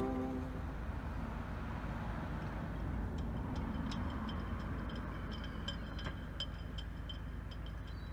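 Outdoor harbour ambience: a steady low rumble with a light hiss. From about three seconds in, a string of short high-pitched ticks or chirps comes every half second or so.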